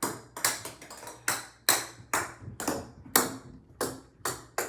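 A series of sharp taps on something hard, about two to three a second and unevenly spaced, each with a short ringing tail.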